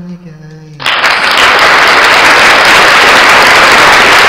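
A man's held sung note fades, then loud, even crowd applause starts about a second in. The applause has a sharp upper cutoff and an abrupt stop, like a recorded applause effect.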